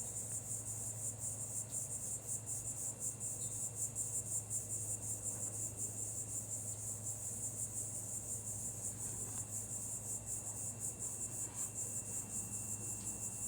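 Steady high-pitched insect chorus, a continuous fast pulsing trill typical of crickets, over a low steady hum.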